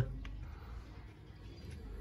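Faint steady low hum with no distinct event: background room tone.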